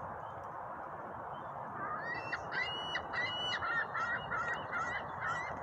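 Birds calling in a quick run of short, rising calls, several a second, starting about two seconds in, over a steady rushing background noise.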